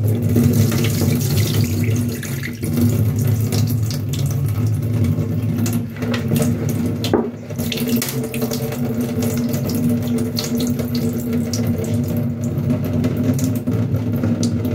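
Water pouring from a tipped cooking pot into a metal sink in a steady splashing stream: the vinegar wash water being drained off pieces of goat meat.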